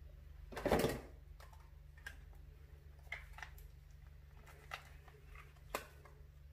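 A short burst of noise about a second in, then a few light clicks and taps of small objects being handled, over a low steady hum.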